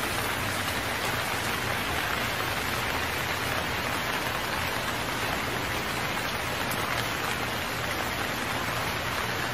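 Steady rain falling, an even unbroken hiss of many drops.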